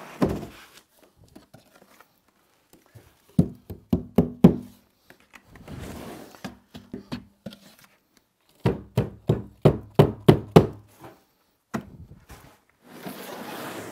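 Trowel scooping rapid-set tile adhesive out of a plastic bucket and knocking it off onto the floor: two runs of quick, dull knocks, a few seconds in and again past the middle, with scraping of the trowel in the wet adhesive between them.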